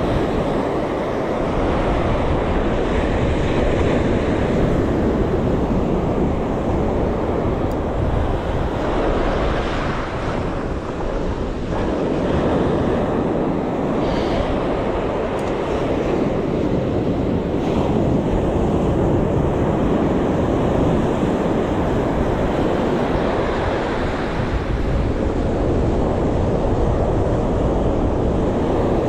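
Wind buffeting the microphone over the steady wash of waves on the shore, swelling and easing slowly.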